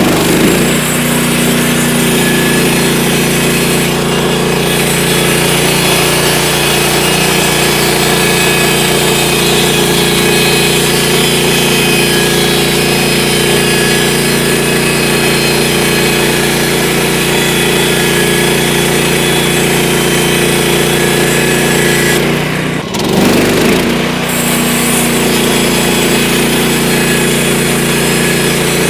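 Portable band sawmill running, its gas engine holding a steady speed while the blade saws through a log, with a momentary break about three quarters of the way through.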